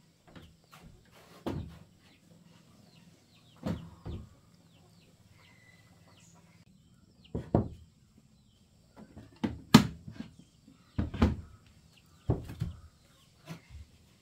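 Irregular knocks and thuds of household items being picked up and set down on a wooden plank floor, the loudest about ten seconds in. Faint high chirps of birds sound in the background, and a low hum stops about seven seconds in.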